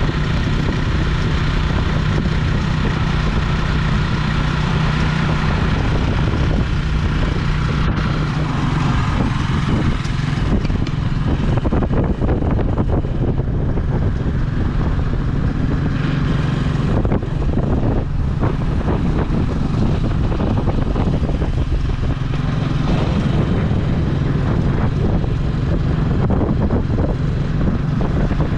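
Vehicle engine running steadily, heard from aboard while riding, with wind and road noise mixed in.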